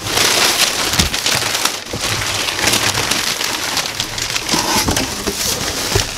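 Crumpled packing paper rustling and crackling continuously as it is pulled by hand out of a cardboard box and dropped on the floor.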